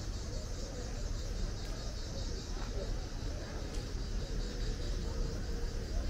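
Outdoor street ambience: a steady low rumble with no distinct events.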